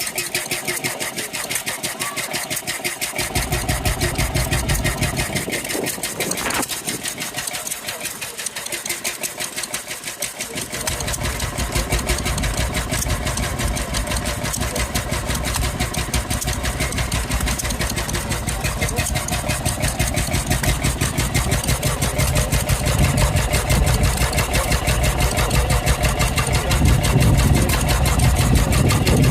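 Tangye Type M two-stroke stationary engine running steadily, firing in a fast, even rhythm. A deeper low rumble joins after about three seconds, drops away, and comes back about eleven seconds in.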